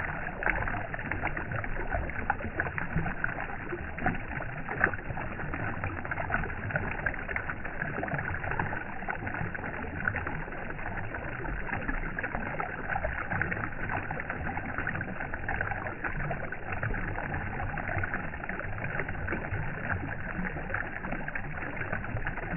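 Water moving and lapping in a steady, even wash of noise, with small irregular splashes and ticks throughout.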